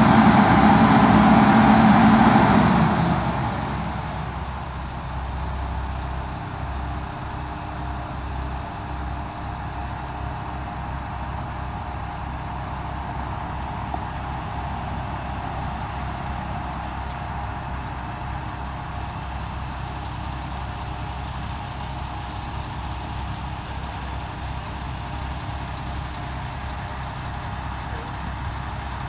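Road traffic: a heavy vehicle's engine is loud for the first few seconds, then fades to a steady low rumble that runs on.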